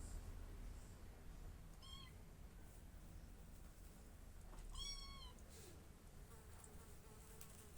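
A domestic cat meowing faintly twice: a short meow about two seconds in, then a longer meow whose pitch rises and falls about five seconds in.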